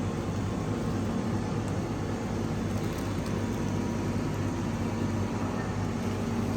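Steady machinery hum with a low drone and a faint high tone, unchanging throughout.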